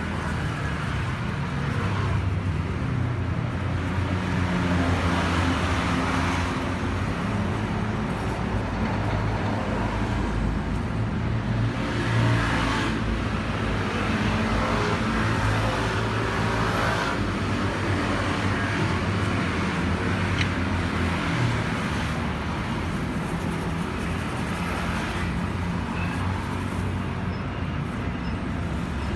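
Road traffic: a steady engine hum, with several vehicles passing one after another and swelling up and fading.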